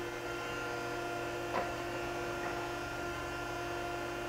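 Okamoto ACCUGAR-124N hydraulic surface grinder running without grinding: a steady electric hum from its motors and hydraulics, with a single light click about one and a half seconds in.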